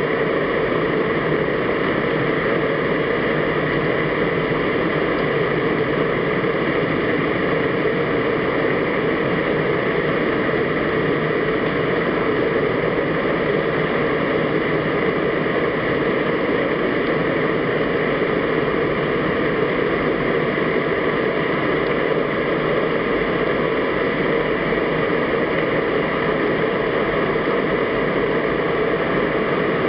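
Steady underwater noise picked up by a camera in a waterproof housing: an even hiss with a few faint steady hums underneath.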